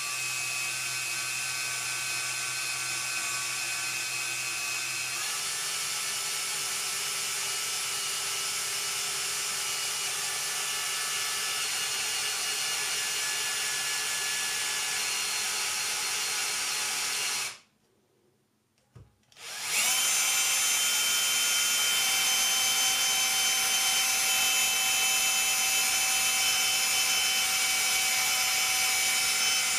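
Cordless drill running steadily as a 10 mm metal twist bit bores into a wooden deck piece. The motor's whine shifts pitch about five seconds in, stops for about two seconds a little past halfway, then starts again louder.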